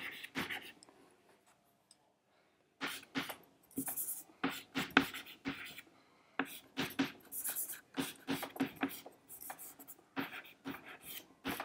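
Chalk writing on a blackboard: irregular short taps and scratches as letters are written, after a pause of about two seconds near the start.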